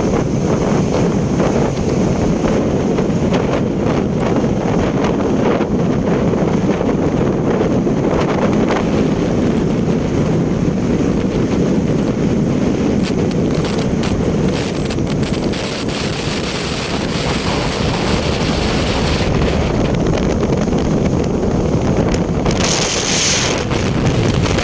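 Steady wind rush on the microphone and road rumble from a vehicle travelling at speed along a highway, with a brief burst of hiss near the end.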